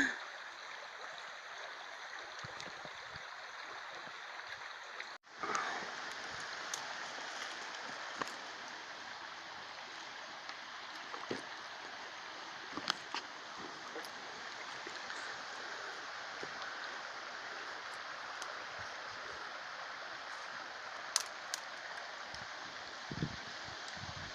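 Steady rush of flowing river water, with a few faint scattered clicks. It cuts out for a moment about five seconds in, then carries on.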